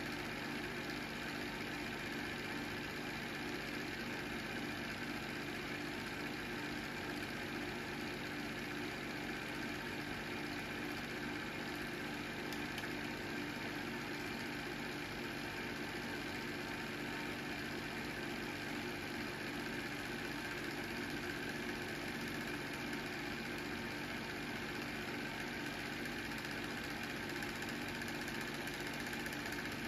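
Home-movie film projector running: a steady motor and fan hum that does not change across the picture's cuts.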